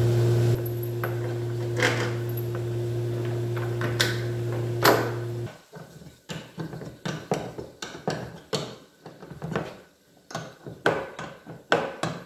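Hands working with tools and small parts: a few sharp knocks over a steady hum, then, about halfway through, the hum stops and a quick, irregular run of clicks and knocks follows.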